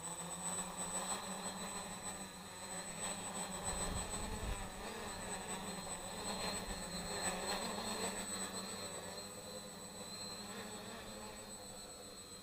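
Homemade 3D-printed quadcopter's electric motors and propellers spinning up and running with a steady hum and a high whine. A brief low rumble comes about four seconds in, and the sound fades over the last few seconds as the quadcopter flies off.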